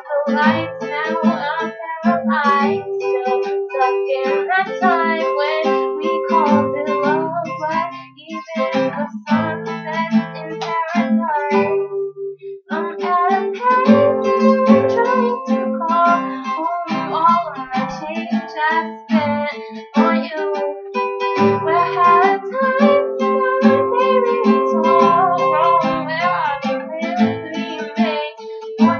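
Acoustic guitar strummed as accompaniment, with a voice singing over it and a short break about twelve seconds in.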